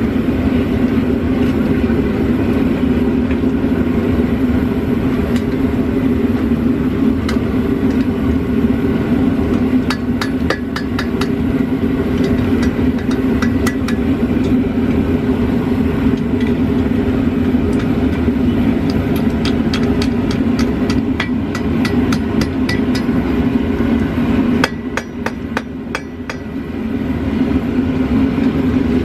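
Hand hammer striking hot steel on an anvil in runs of quick blows, most of them from about a third of the way in and through the second half, over the steady running of a propane gas forge's burner.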